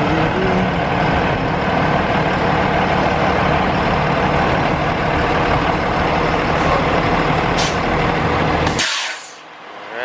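Heavy diesel vehicle engine idling steadily, with a couple of short hisses of air from the air brakes near the end; then the engine sound cuts off suddenly.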